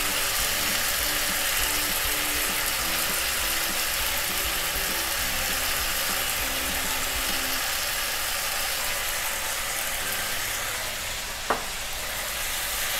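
Spaghetti with tomatoes sizzling steadily in oil in a frying pan, while black pepper is ground over it with a hand pepper grinder. A single sharp click about eleven and a half seconds in.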